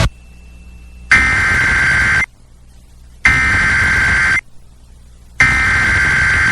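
Emergency Alert System SAME header: three bursts of digital data tones, each about a second long with about a second's gap between them. They mark the start of a new alert, here a National Weather Service severe thunderstorm warning, relayed over a radio station's stream.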